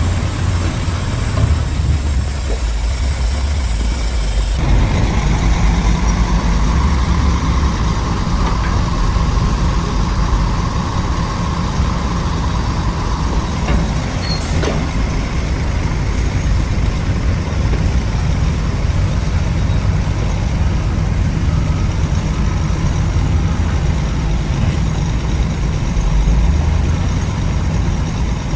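Heavy diesel engine of road-construction machinery running steadily, its note changing about four and a half seconds in.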